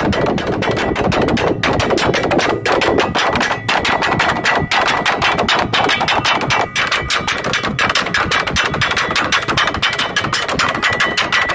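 Traditional drums beaten fast and without a break, a dense run of sharp strokes many times a second with a steady high ringing tone near the end.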